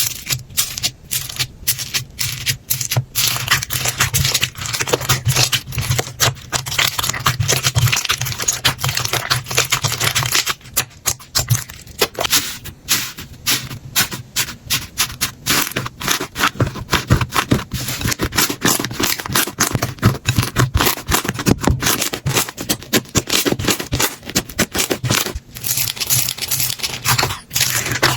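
Slime being squeezed, poked and stretched by hand: a dense, continuous run of small crackles and pops, with brief lulls now and then.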